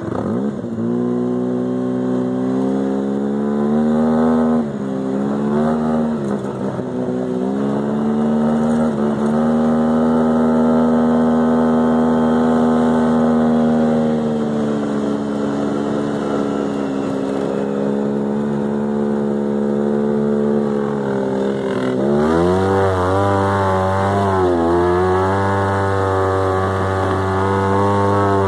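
Polaris RZR side-by-side's engine running under throttle on sand, revs rising and falling again and again. It holds a fairly steady pitch for several seconds in the middle, sinks slowly, then swings up and down quickly over the last six seconds or so.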